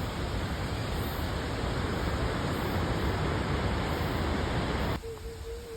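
Large waterfall swollen with the previous day's typhoon rain, a loud steady rushing of falling water. About five seconds in it cuts off abruptly and a soft background melody takes over.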